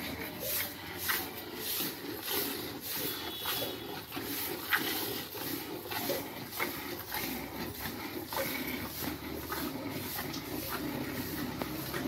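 Cow being milked: short hissing pulses of milk jets at a steady rhythm of about two a second, with scattered clicks and knocks from the cattle shed.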